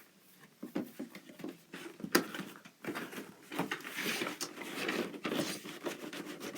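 Doll box packaging being opened by hand: irregular rustling and scraping of cardboard and plastic, with a sharp click about two seconds in and busier rustling near the end.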